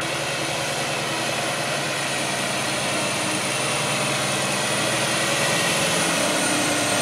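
Diesel engine of a tri-axle dump truck running steadily as the truck drives slowly over a dirt pad to compact it, growing a little louder as it comes closer.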